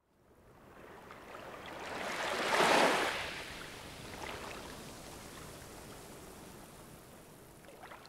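Ocean surf: a wave washing up the shore, its hiss swelling to a peak about three seconds in, then slowly receding and fading.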